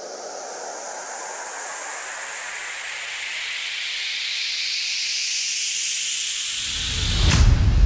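An electronic white-noise riser sweeps upward in pitch and grows steadily louder. About seven seconds in it ends in a sharp downward sweep and a heavy bass hit as the music drops in.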